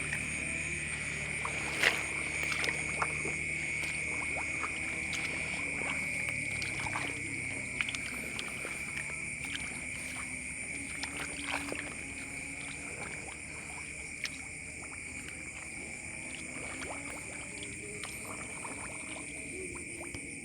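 Steady high-pitched chorus of calling animals, with a few sharp clicks, the loudest about two seconds in.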